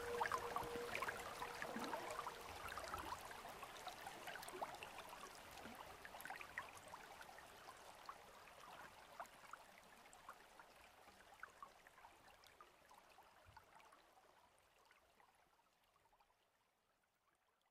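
The video's soundtrack fading out. A held note stops about a second in, leaving a soft hiss with many faint, quick clicks that dies away steadily to silence near the end.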